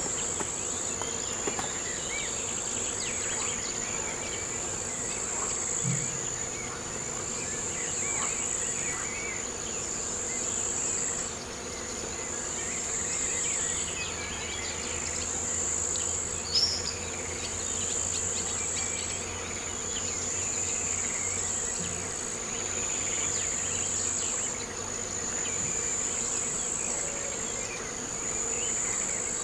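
Steady, high-pitched insect chorus that swells and dips slowly, with scattered bird calls and one short, sharp chirp about halfway through.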